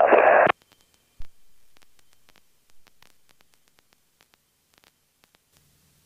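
Air traffic control radio speech that cuts off abruptly half a second in. Then near silence on the headset audio feed, with a single thump about a second in and faint scattered clicks. A faint low hum starts near the end.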